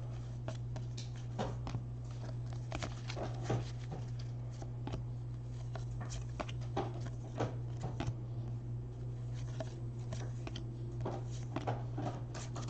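Trading cards being handled and flipped through by hand: soft, scattered clicks and rustles, over a steady low hum.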